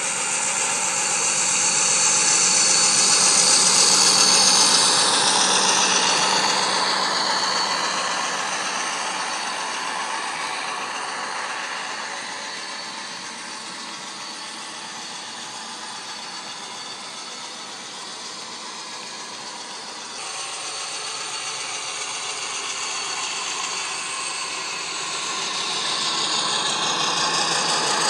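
OO-gauge model Class 56 diesel locomotive running with its factory-fitted ESU sound decoder playing the diesel engine sound through its onboard speaker, over the rattle of the model's wheels and wagons on the track. It grows louder a few seconds in, fades as the wagons pass, and rises again near the end, with a sweeping high whine at the loudest moments.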